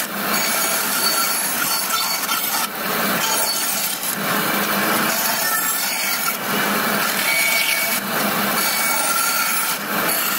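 Bandsaw running and cutting a slot into a plywood sidewall: a steady rasp of the blade through the wood over the machine's running sound, with small dips in loudness as the board is fed.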